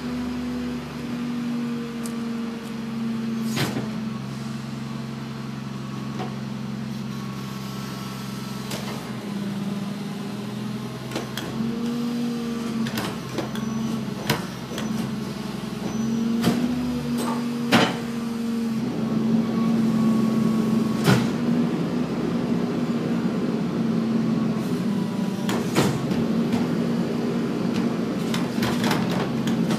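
Rear-loading garbage truck's engine running steadily, its pitch rising briefly a few times, with repeated sharp knocks and clatters as plastic wheeled trash carts are tipped and banged against the hopper.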